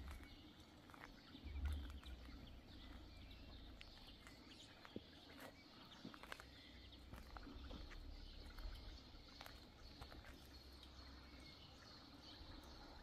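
Near-silent outdoor ambience: a faint low rumble, briefly louder about two seconds in, with scattered light clicks.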